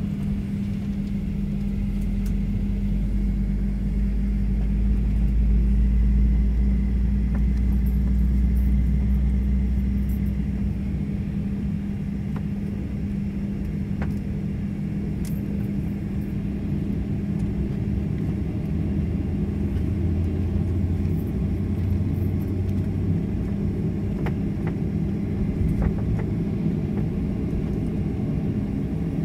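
Cabin noise of a Boeing 737-900 on the ground, heard from inside the cabin: a steady hum from its CFM56 engines at low power, with a deeper rumble that swells a couple of seconds in and dies away about ten seconds in.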